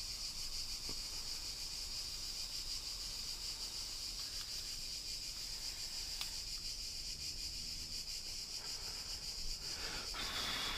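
Small LPG soldering torch burning with a steady high hiss while it heats the solder cup of a connector pin to melt the solder.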